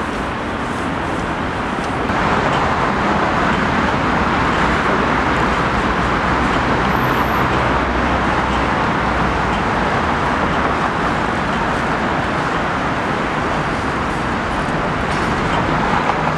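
Steady city street traffic noise, a continuous even wash of vehicle sound that steps up in level about two seconds in.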